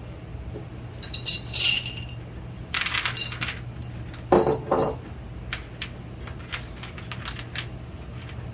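Small metal hardware clinking as it is handled, with a louder dull knock about four seconds in and a scatter of light ticks after it.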